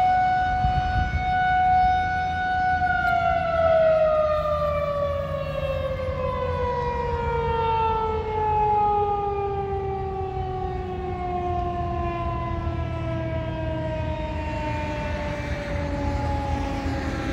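Federal Signal 2001-130 outdoor warning siren with a broken rotator, so the horn stays fixed and the tone does not swell and fade as it would while turning. It holds its top pitch steady for about three seconds, then winds down in a long, slowly falling wail.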